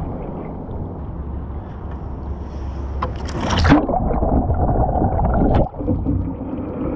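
A Current Designs Sisu LV sea kayak capsizing and rolling back upright, heard from a camera on its bow. A splash about three seconds in as the boat goes over is followed by muffled underwater gurgling that breaks off suddenly near six seconds as the kayak comes back up.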